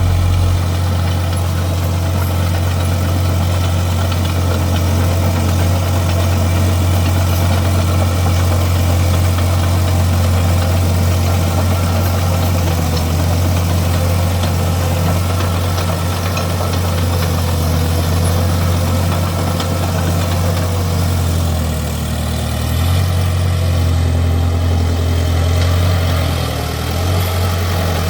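SD10 bulldozer's diesel engine running steadily with a deep, even drone. The pitch and level shift slightly about twenty seconds in.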